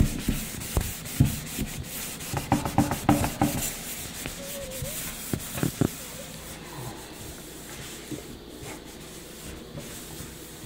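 A white cloth rubbing and buffing polish over a stainless steel kitchen sink: quick rubbing strokes, thickest in the first few seconds, dying away after about six seconds.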